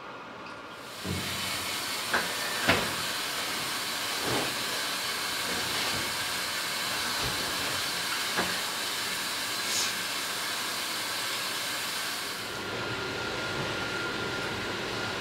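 Top-load washing machine filling, water rushing into the drum as a steady hiss, with a few light plastic knocks and clicks. The hiss gives way to a quieter, steady room hum about three-quarters of the way through.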